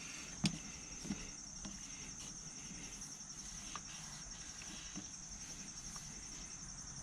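Insects chirping in a steady, fast-pulsing high chorus, with a few faint clicks over it, the clearest about half a second in.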